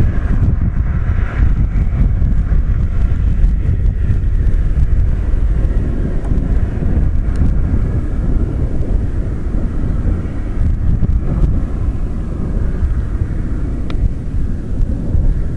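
Wind buffeting the microphone in a steady, gusty low rumble.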